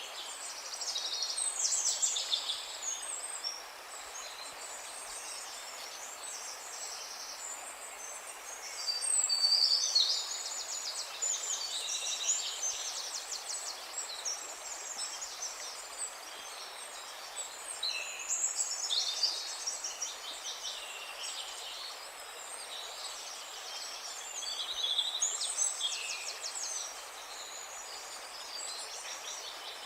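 Several songbirds singing and calling in overlapping bouts of rapid trills and warbling notes, over a steady soft hiss of background noise. The song is loudest about a third of the way in.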